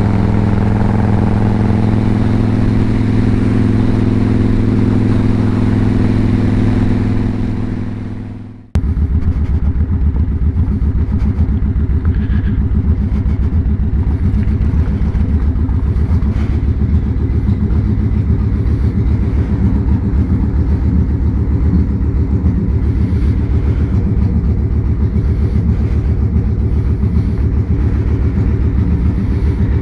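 Victory Hammer's V-twin engine running steadily under way for about eight seconds, then after an abrupt cut idling with a low, even, pulsing beat.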